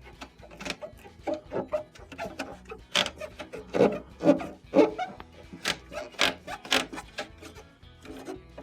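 Rubber refrigerator door gasket being pulled out of its plastic retaining channel in the door, a run of irregular short pops and rubbing scrapes as it peels free.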